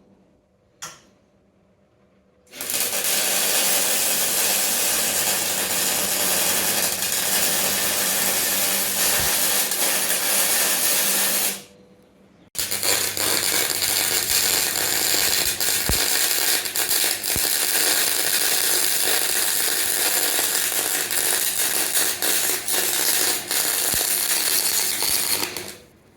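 Electric arc welding: two long welding runs of steady crackling and sizzling with an electrical hum underneath, separated by a brief stop about halfway through.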